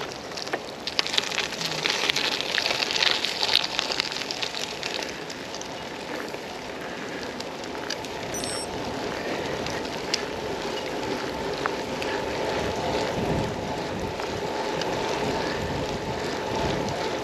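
Rain and wet-road noise on a bicycle ride: a crackling patter of rain, densest in the first few seconds, over a steady hiss of wind and tyres on the wet road.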